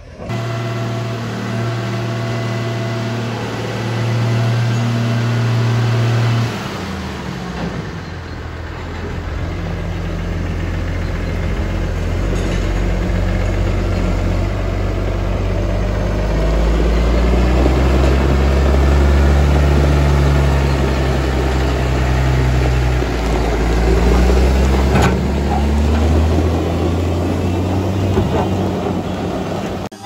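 A farm tractor's diesel engine runs under load, its pitch stepping up and down several times as the engine speed changes.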